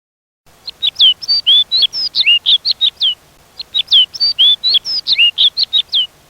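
A songbird singing two near-identical phrases of quick, varied whistled notes, each about two and a half seconds long, with a short pause between. The song starts and stops abruptly.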